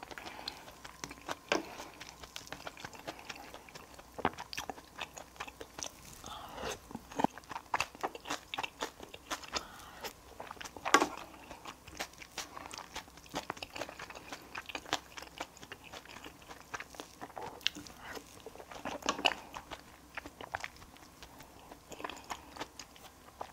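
Close-miked eating: chewing and crunching with frequent small irregular mouth clicks and a few louder ones.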